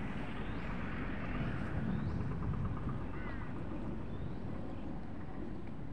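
Wind buffeting the microphone in a steady low rumble, with a few short bird chirps over it and a quick chattering bird call about three seconds in.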